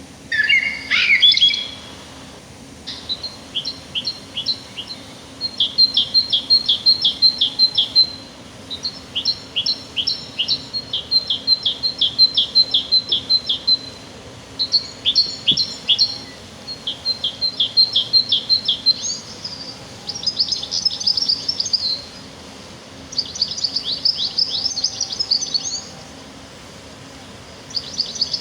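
Songbird singing: phrase after phrase of rapid, evenly spaced high chirps, each phrase a couple of seconds long, with brief pauses between them.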